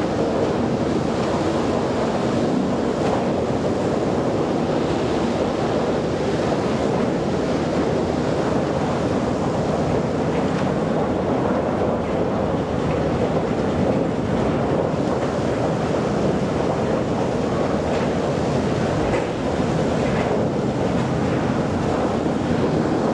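Steady, even rumbling roar of log-yard machinery, a drum debarker and log crane at work, with a few faint knocks near the end.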